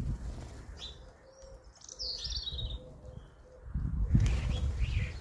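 Garden birds chirping and twittering around a feeder in several short bursts, over a low rumbling noise.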